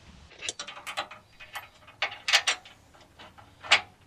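Irregular sharp metal clicks and knocks, about eight in four seconds, from a steel skid-plate bracket and its bolts being handled and fitted. The loudest come a little after two seconds in and near the end.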